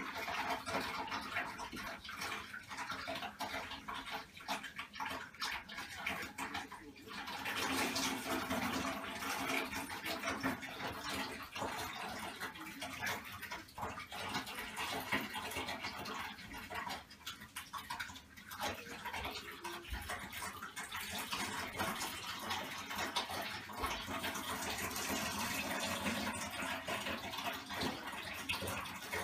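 Bathtub filling with hot water from the tap: water running and splashing steadily into the tub.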